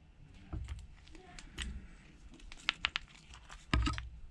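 Scattered small clicks and taps of metal tweezers and gloved hands working on an iPhone 12 Pro's display assembly, prying a flex cable free, with a louder knock near the end as the screen is handled.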